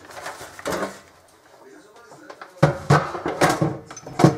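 A large plastic sheet rustling and crinkling as it is lifted off a cooktop and bundled up. The crinkling is soft at first and grows loud and dense over the last couple of seconds.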